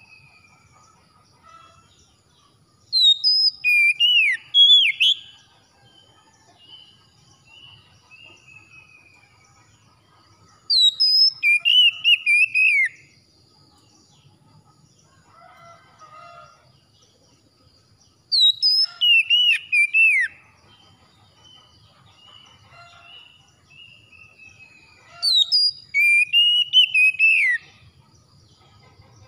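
Oriental magpie-robin singing four loud whistled phrases, each about two seconds long with sweeping notes and high trills, about seven or eight seconds apart. Fainter calls from other birds fill the gaps.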